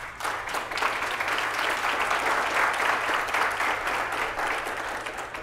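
Audience applauding, starting at once and dying away near the end.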